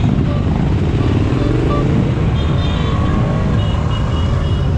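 Motorcycle engines running as a group of bikes rides past, with one engine's pitch rising over the first two seconds as it speeds up.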